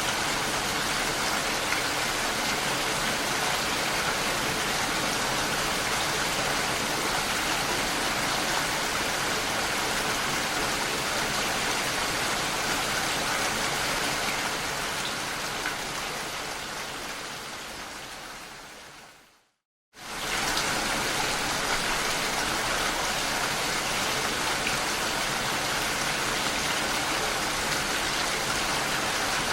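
Steady, gentle rain with no thunder, a continuous hiss of drops. About two-thirds of the way through it fades out over a few seconds to a brief moment of silence, then cuts straight back in at full level: the rain recording looping.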